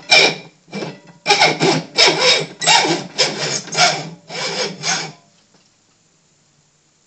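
Hacksaw cutting through an aluminum arrow shaft, in rasping back-and-forth strokes about two a second that stop about five seconds in.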